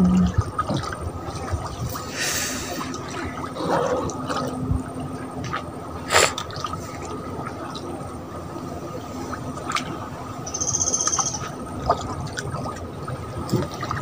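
Water lapping and gurgling against the hull of a small boat as it moves slowly along, with scattered knocks. A brief high-pitched note sounds near the end.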